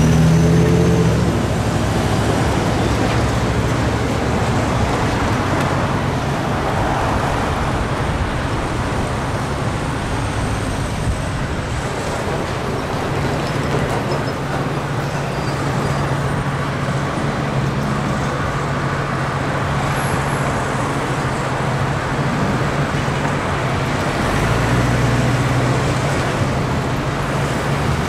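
Double-stack intermodal freight train rolling past at a grade crossing: a steady rumble and clatter of steel wheels on the rails, with a low hum that swells near the end.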